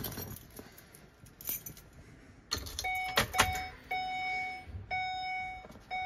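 A few clicks and rattles of keys and plastic, then from about three seconds in a 2014 Ford E350's dashboard warning chime sounds repeatedly, a steady mid-pitched electronic tone, with the ignition switched on.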